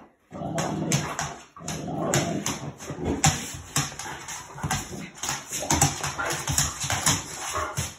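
A large dog making vocal play noises while being wrestled with, over many quick, irregular clicks and scuffs of its claws and paws scrabbling on a laminate floor.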